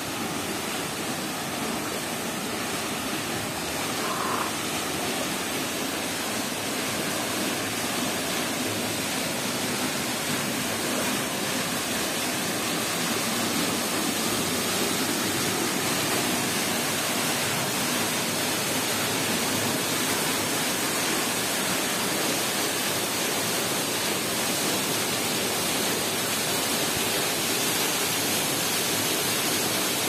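Waterfall falling into a rock pool: a steady, even rush of water.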